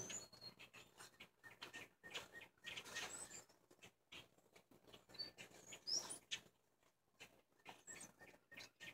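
A couple of birds squabbling in a tree: short, high chirps scattered through, with faint clicks and rustles between them.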